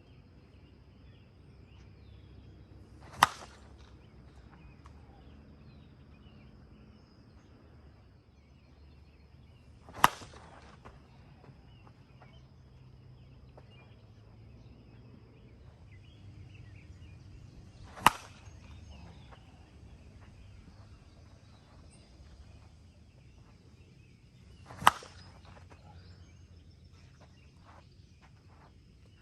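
Four sharp cracks of a 2024 Miken Ultra 'Big Cat' slowpitch softball bat hitting balls off a tee, spaced about seven to eight seconds apart.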